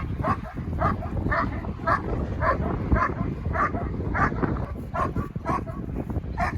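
A dog barking repeatedly, short high yips about twice a second, over a steady low rumble.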